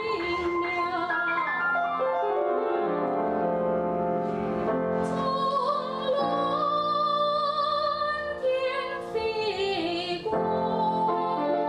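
A woman singing in a trained, operatic style with vibrato, accompanied by a grand piano. She holds one long high note through the middle.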